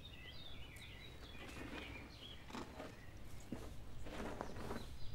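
Small birds chirping and twittering, then faint scuffing and rustling of someone shifting on hands and knees over dry, gravelly ground, a few short scrapes and a longer one near the end.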